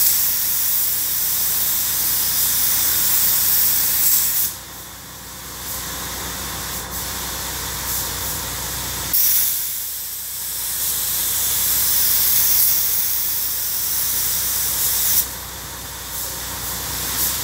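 Compressed-air gravity-feed spray gun hissing as it sprays paint, in long passes: the hiss cuts off about four seconds in, starts again about nine seconds in and cuts off again about fifteen seconds in as the trigger is released and pulled.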